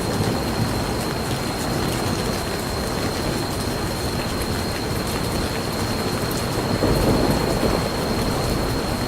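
Steady rain ambience with a brief swell of low rumble, distant thunder, about seven seconds in.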